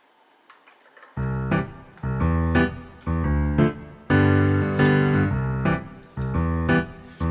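Background music: keyboard chords with a piano-like sound. The music starts about a second in, and a new chord is struck roughly once a second.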